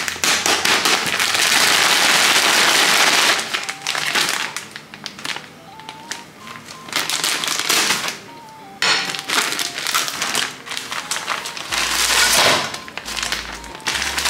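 Plastic bag of frozen sliced pork crinkling loudly as it is handled and cut open, then again as the pork is shaken out into a frying pan. Soft background music with a simple melody is heard in the quieter stretch between.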